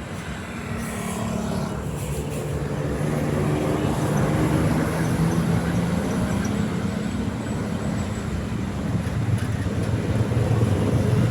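Heavy bus engine and road noise drawing nearer, the low engine note getting steadily louder.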